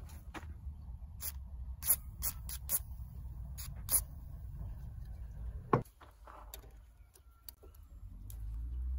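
A series of short squirts from an aerosol can of penetrating oil, sprayed through its straw onto a rusted nut and bolt. A single sharp knock follows a little before six seconds in.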